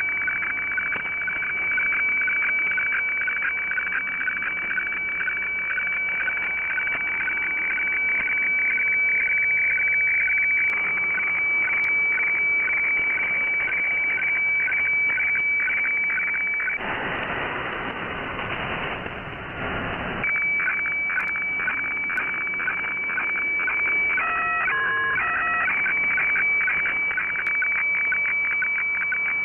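HF weather radiofacsimile signal from Kyodo News Agency, heard through a shortwave SSB receiver: a steady high tone with rapid chirping dips to a lower tone as the black lines of the map are scanned, over narrow-band receiver hiss. A little past halfway the tone drops out for about three seconds, leaving only hiss, and a few seconds later a brief run of stepped tones cuts in.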